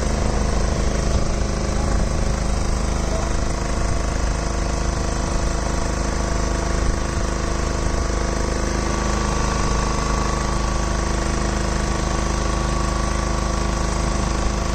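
A small engine running steadily at an even idle, a constant drone with no change in speed.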